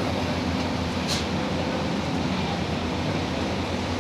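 Excavator's diesel engine running steadily, with a brief high hiss about a second in.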